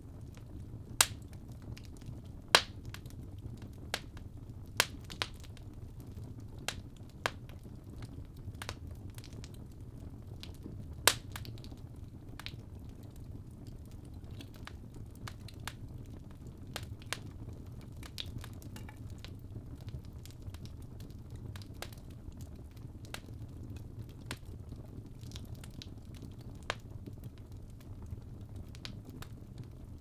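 Fire burning in a fireplace, crackling: irregular sharp pops and snaps over a low steady rumble, with a few louder pops in the first dozen seconds.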